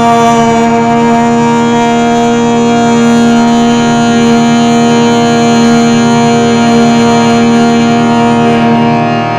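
A chanted Om held on one long, steady pitch over a harmonium drone.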